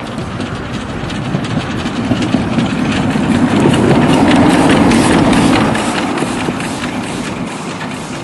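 Narrow-gauge Henschel steam locomotive passing close by, its exhaust chuffing over the hiss of steam from the cylinder drain cocks. It grows louder as it draws level about four seconds in, then fades as it moves away.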